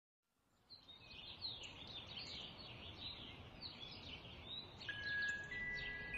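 Sparrows chirping busily, many short overlapping chirps fading in from silence under a second in. About five seconds in, soft steady chime-like music notes begin beneath them.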